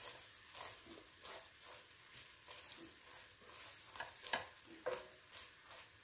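Vermicelli sizzling faintly in melted butter as it toasts toward golden, stirred with a wooden spoon in a stainless steel saucepan. The spoon scrapes and taps against the pan at irregular intervals, loudest a little past four seconds in.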